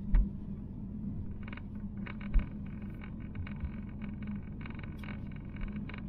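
Car cabin noise while driving on a wet road: a steady low engine and tyre hum, with two low thumps, one just after the start and one about two and a half seconds in.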